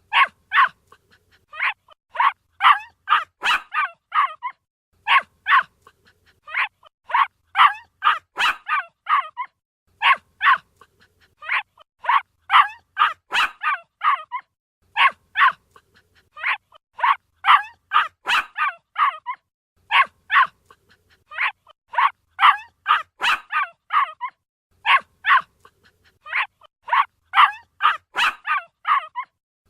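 A puppy barking: high-pitched little barks and yips in quick runs of four to eight, with short pauses between runs.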